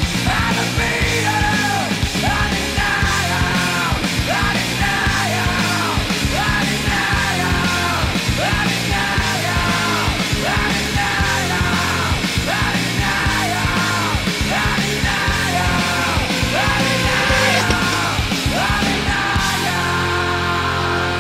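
Loud rock music soundtrack with shouted vocals over a steady, fast drum beat and distorted guitar; the vocals drop out near the end, leaving the guitar and bass.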